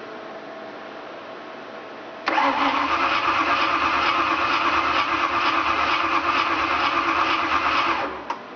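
The starter cranks the Thunderbird's 5.0 V8 for about six seconds in a steady, evenly pulsing churn without the engine catching, then stops, with a single click just after: a no-start. A steady hum sits under it from the start.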